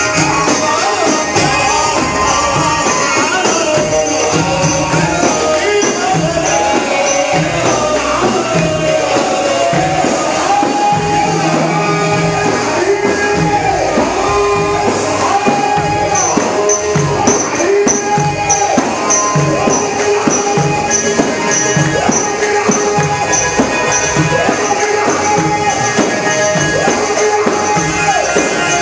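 Egyptian folk band playing an instrumental passage: a winding melody over a steady beat, with tambourine jingles growing more prominent about halfway through.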